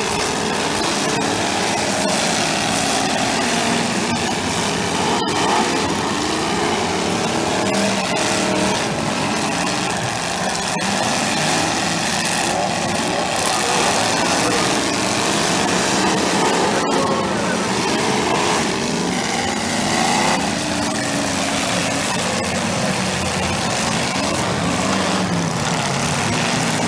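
Several demolition derby cars' engines running and revving at once, their pitch rising and falling again and again.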